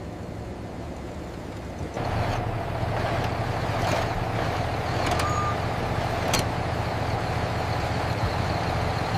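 Heavy construction vehicle engine running steadily, growing louder about two seconds in, with a couple of sharp clicks near the middle.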